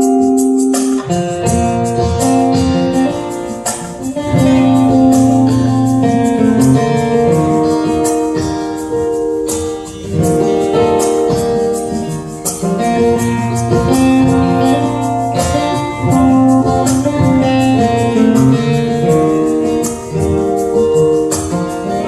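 Acoustic band playing an instrumental intro: sustained keyboard and guitar chords, with a steady shaken-percussion beat, likely tambourine, coming in about a second in.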